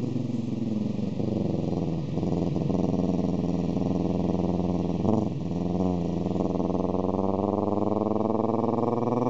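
Amateur vocal imitation of a car engine: a sustained buzzing engine note that climbs slowly in pitch like an accelerating car. It breaks off and restarts briefly about five seconds in, like a gear change.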